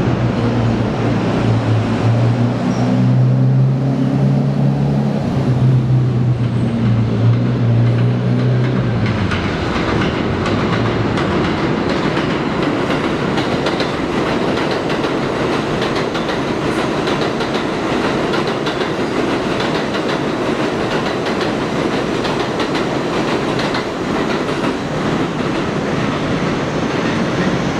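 R32 subway train: a low hum with several steady tones for about the first nine seconds as it approaches, then a steady rumble and clickety-clack of steel wheels on the rails as the cars run past.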